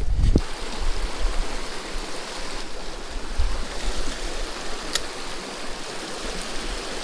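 Creek water rushing steadily, with a low rumble of wind on the microphone, strongest at the start, and one sharp click about five seconds in.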